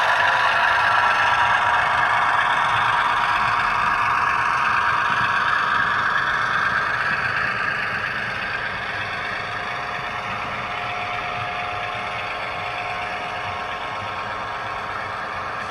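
Diesel switcher engine sound played by the ESU LokSound decoder in an HO scale Athearn Genesis MP15AC model, through its small onboard speaker, mixed with model freight cars rolling on the track. It grows fainter over the first eight seconds or so as the locomotive draws away, then holds steady.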